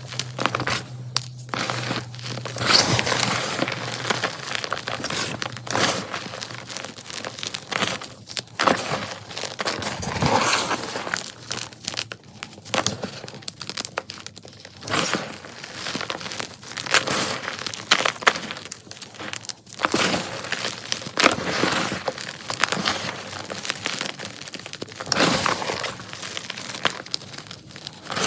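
Blocks of Ader gym chalk being crushed, crunching and crumbling in quick, irregular bursts.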